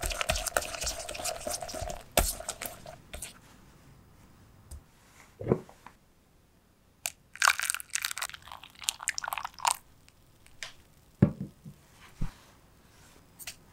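Silicone whisk beating egg and sugar against a glass bowl, a fast run of clicks and scrapes for the first two seconds. Later, milk is poured and splashes into the frothy egg mixture, followed by a couple of sharp knocks.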